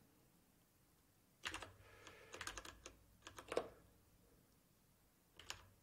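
Faint computer keyboard key presses: a quick run of clicks from about a second and a half in until a little past three and a half seconds, then one more click near the end.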